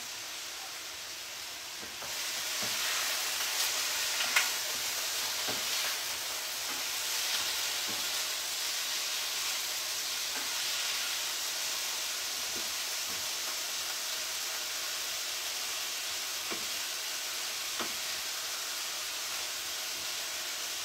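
Chicken pieces sizzling as they fry in hot oil in a pan, stirred with a utensil that clicks and scrapes against the pan now and then. The sizzle gets louder about two seconds in.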